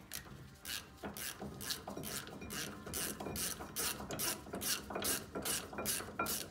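Socket ratchet clicking as it is swung back and forth at about three strokes a second, unscrewing a 22 mm brake caliper bracket bolt that has already been broken loose.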